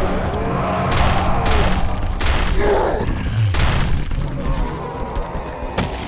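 Cartoon sound effects of a heavy creature running: booming thuds over a low rumble, with a few short rushes of noise about every half second to a second.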